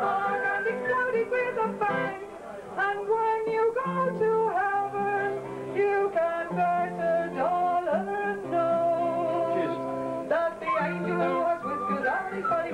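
Live folk music: a singer singing into a microphone over an acoustic guitar.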